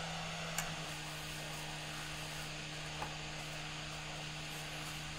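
Hot-air rework station's blower running: a steady airy hiss with a low hum underneath, and a couple of faint small ticks.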